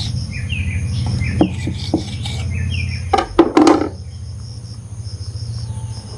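Crickets chirring steadily and a bird giving a few short falling chirps, over a low steady hum. A quick cluster of sharp knocks comes about three seconds in and is the loudest sound.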